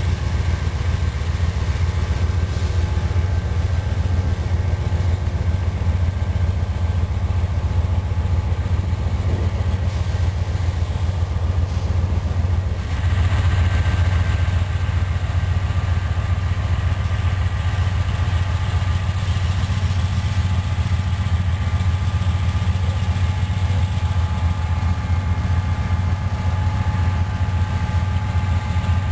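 Diesel freight locomotives, including a Conrail-painted EMD SD60I, working at full throttle to drag a heavy loaded coal train slowly up a grade. A steady deep engine rumble with a constant high whine over it.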